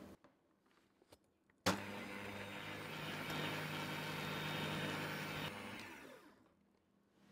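Electric hand mixer switched on with a click a little over a second and a half in, its motor running steadily as the twin beaters whip egg yolks and sugar. It then winds down and stops about a second before the end.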